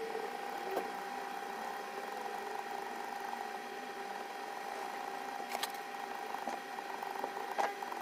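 A metal blade scraping a blue coating off a phone circuit board's charging-port solder pads, over a steady electrical hum from bench equipment. Two sharp clicks come near the end.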